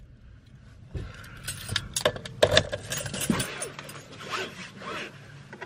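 Rustling and scattered sharp clicks of handling inside a parked car, as a seatbelt strap is pulled out across the body.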